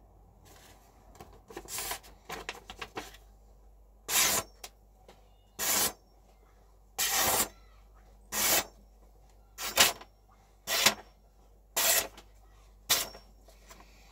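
A VG10 Damascus steel santoku knife slicing through a sheet of paper held up in the air: about eight quick slices, each a short crisp swish, roughly one every second or so. Fainter paper rustles come in the first few seconds.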